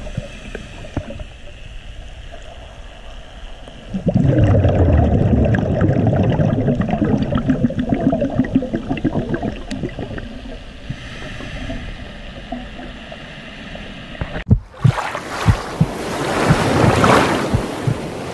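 Underwater sound on a diving camera: the low rush and crackle of a scuba diver's exhaled bubbles, loud from about four seconds in and then fading. About fifteen seconds in it cuts to a brighter, loud rushing noise above water, with several thumps.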